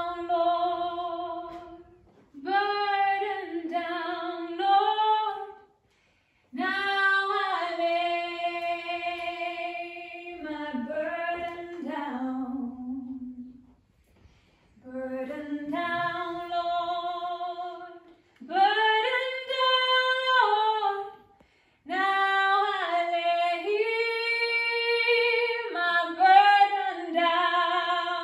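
A woman singing unaccompanied in long, slow, held phrases with vibrato, with short pauses between them.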